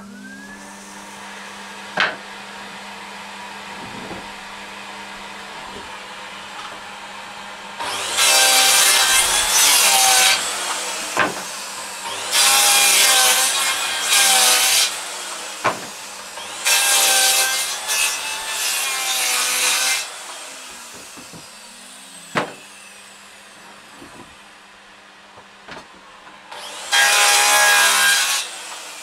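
Makita circular saw spinning up, then cutting firewood in about six loud cuts of one to two seconds each, the blade whining and winding down between cuts, with a few sharp knocks of wood. A Henry vacuum used for sawdust extraction hums steadily underneath.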